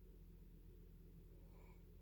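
Near silence: a steady low room hum, with one faint brief sound about a second and a half in.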